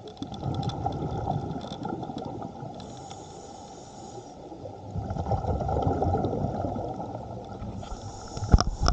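Scuba diver breathing through a regulator underwater, heard from the diver's own camera. A rush of exhaled bubbles comes at the start and again about five seconds in, with a hiss from the regulator on each inhale between them. A sharp knock sounds near the end.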